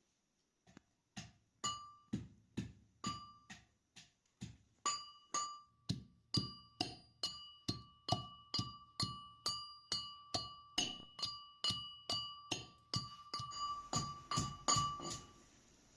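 A hard utensil striking a ringing hard surface in a steady rhythm, about two strikes a second. Each strike leaves a clear metallic ring that carries over into the next. The strikes stop shortly before the end.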